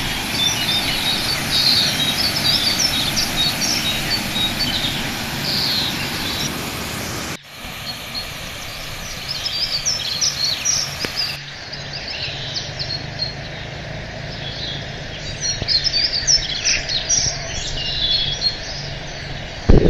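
Many birds chirping and calling over a steady low background noise, with a brief break in the sound about seven seconds in.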